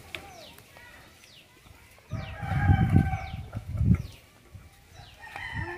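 Rooster crowing once, a call of about two seconds starting about two seconds in, with a low rumble under it. Small birds chirp again and again throughout, and hens cluck near the start and end.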